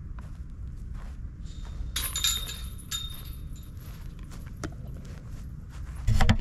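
Metal chains of a disc golf basket jangling and ringing for about a second, some two seconds in, as a putted disc hits them, over a low rumble of wind on the microphone. Near the end, loud knocks as the camera is handled and picked up.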